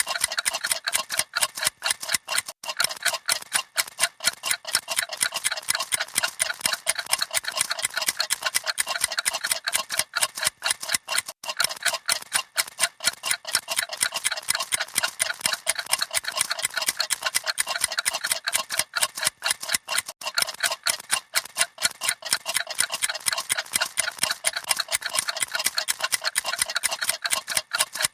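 Several clocks ticking rapidly at once, their fast overlapping ticks making a dense, steady, uneven patter.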